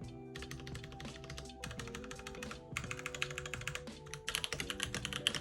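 Keychron C1 mechanical keyboard in stock form being typed on: a fast run of key clacks with a few short pauses, growing louder about four seconds in. Soft background music underneath.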